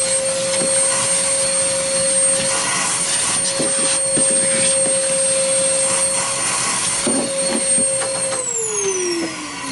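Vacuum cleaner running steadily with a high whine as it sucks dust off a workbench, with a few short clicks. It is switched off about eight seconds in and winds down, its pitch falling.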